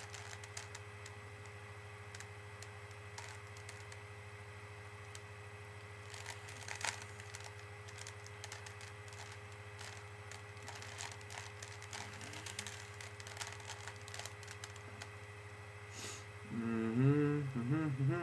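Plastic Rubik's cube layers being twisted by hand: a light, irregular run of soft clicks, over a steady electrical hum. A person's voice sounds briefly near the end.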